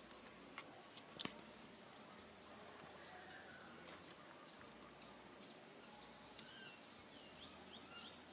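Faint outdoor background with high-pitched chirping calls. Two short arched chirps come near the start, with a sharp click between them, then a run of quick, faint falling chirps.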